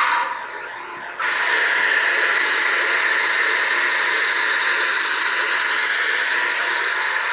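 Custom lightsaber sound font playing from an Ultrasabers Obsidian saber: the blade's hum, then about a second in a sudden loud, steady hissing effect that holds for about six seconds and cuts off abruptly.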